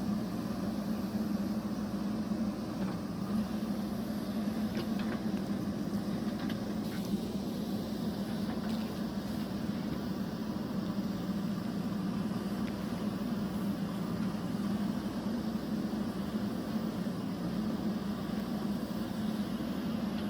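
Steady low machine hum that holds one pitch throughout, with a few faint ticks about five to seven seconds in.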